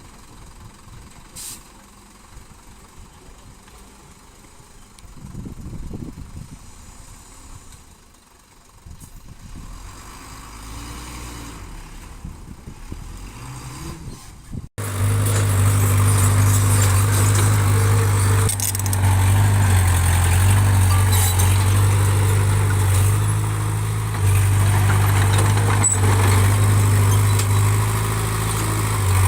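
Diesel engine of earthmoving machinery running, faint and distant at first. After an abrupt cut about halfway through it is loud and close, with a steady low engine note.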